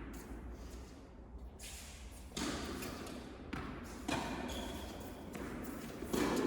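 Tennis ball being hit and bouncing on an indoor court: three sharp knocks about two seconds apart, each with a short echo.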